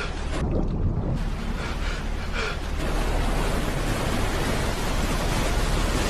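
Muffled underwater rushing and bubbling, opening out about a second in into the loud, steady roar of churning white-water rapids below a waterfall, with a deep rumble underneath.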